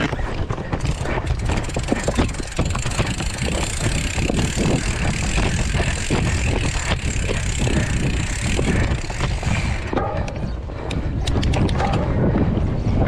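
Mountain bike riding down a rough trail: wind buffeting the microphone, tyres rolling over rough ground, and the bike rattling and clicking throughout. About ten seconds in the rushing hiss drops off for a couple of seconds, leaving sparser clatter, then picks up again.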